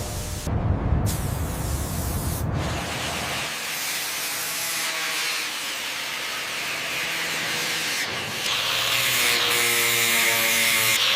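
Steady hissing, spray-like noise, with a low rumble under it for the first few seconds; the hiss gets louder and brighter about eight seconds in.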